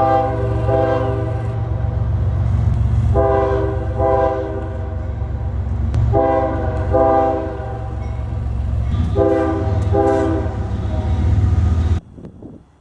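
Locomotive air horn sounding in four pairs of short blasts, the pairs about three seconds apart, over the steady low rumble of the train. The sound cuts off suddenly near the end.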